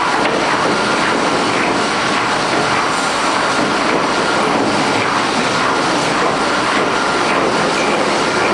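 Horizontal boring mill running, its large rotating facing head machining the end flange of a gate valve body: a steady, loud machining noise with a faint thin whine.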